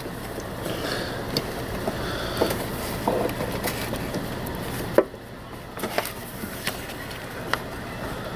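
Gloved hands handling and pushing a plastic heater-core hose coupler onto its pipe: rubbing and rustling with scattered small plastic clicks and knocks, the sharpest click about five seconds in.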